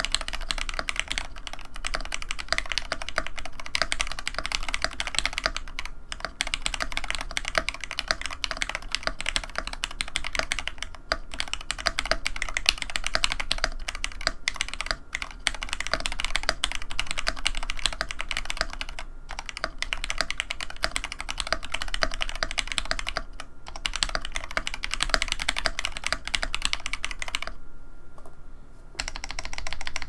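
Fast, steady typing on a YC66 mechanical keyboard with stock Akko x TTC Demon linear switches, Durock plate-mounted stabilizers and DSA keycaps: a dense run of keystroke clacks with brief pauses. The typing stops for about a second near the end, then a few more keypresses follow.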